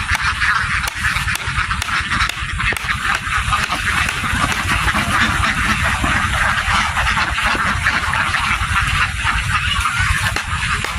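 A large flock of domestic ducks quacking all at once in a dense, continuous din, with a low rumble underneath.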